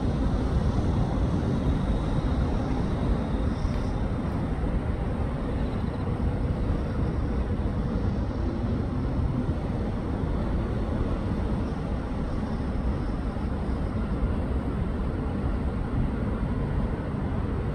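Steady low outdoor rumble with no distinct events, of the kind left by distant traffic or wind.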